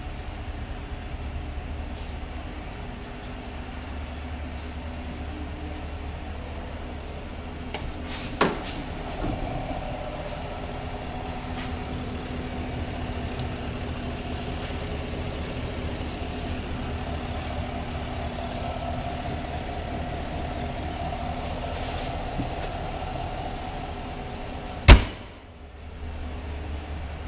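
Steady low hum, with a sharp click about eight seconds in. Near the end a pickup truck's hood slams shut in a single loud bang.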